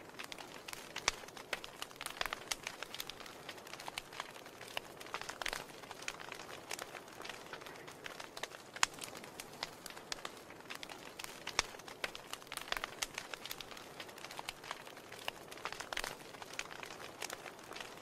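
Wood fire crackling in an open fireplace: irregular sharp pops and snaps over a soft, steady hiss.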